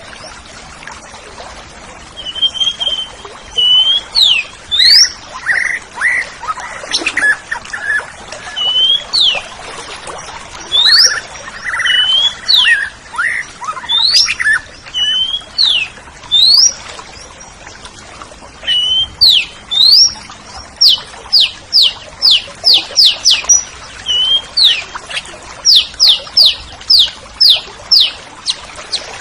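Oriental magpie-robin (kacer) singing: loud, clear whistled notes that sweep up and down, with softer lower notes mixed in during the first half. From about two-thirds through, the song turns into a quick run of repeated falling whistles, about two a second.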